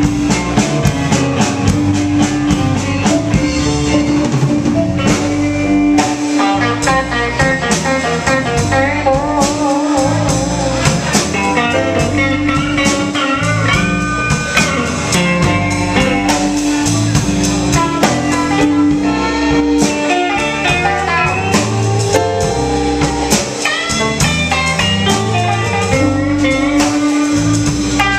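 Live blues band playing an instrumental break between sung verses: a guitar plays lead lines with wavering, bent notes over bass and drums.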